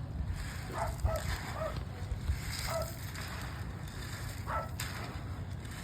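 A few short clucks from hens, about six in the first three seconds and one more later, over a steady low rumble of wind on the microphone. A sharp click sounds near the end.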